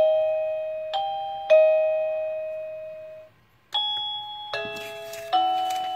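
Plug-in wireless doorbell receiver playing its electronic chime ringtones: three chime notes that each ring and die away, a brief break, then a different tune of several notes starting about halfway through as its button is pressed to switch to the next ringtone.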